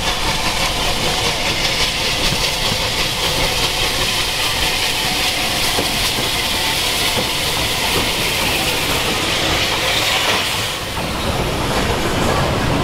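Bulleid Battle of Britain class steam locomotive, an air-smoothed light pacific, approaching with a steady loud hiss of steam. It passes close by about eleven seconds in, and its coaches then rumble past with a clickety-clack of wheels over rail joints.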